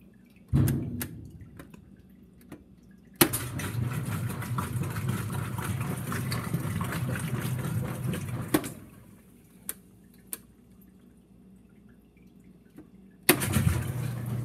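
Whirlpool WTW5300SQ0 top-load washing machine being set to drain: after a thump and a click, the machine runs with water rushing for about five seconds, stops, and starts running again near the end.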